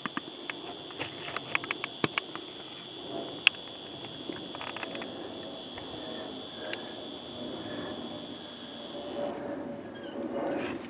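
A steady, high-pitched insect chorus that cuts off abruptly near the end, with scattered sharp clicks and knocks, the loudest about three and a half seconds in.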